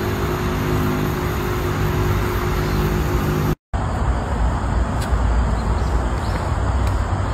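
A steady low mechanical drone, like a distant engine, cuts off abruptly about three and a half seconds in. After the cut, a steady low rumbling noise follows.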